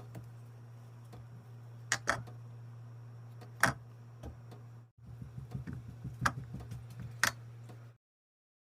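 A few sharp clicks and light knocks of kitchen items being handled and set down, over a steady low electrical hum. The sound cuts out about a second before the end.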